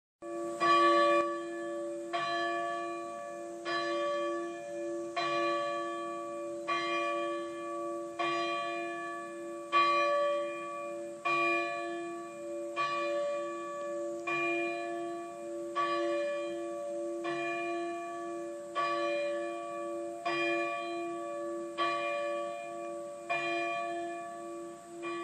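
Monastery church bell tolling: a single bell struck at a steady pace, about one stroke every second and a half, its low hum ringing on between strokes.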